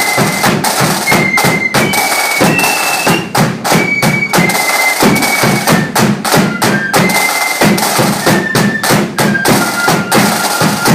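Marching flute band playing a tune: flutes carry a high melody over heavy snare and bass drumming, and the band stops right at the end.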